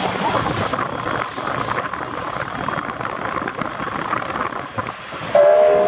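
Steam-hauled passenger train running past with a steady rushing rumble. About five seconds in, a loud, multi-note train whistle starts, several tones sounding together as a chord.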